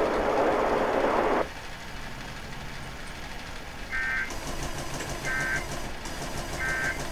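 Radio hiss for about a second and a half, then the three short, buzzy data bursts of an Emergency Alert System end-of-message (EOM) code, about 1.3 s apart, signalling that the alert has ended.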